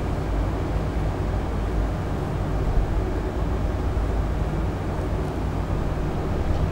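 Steady low rumbling background noise with a faint hum and no speech.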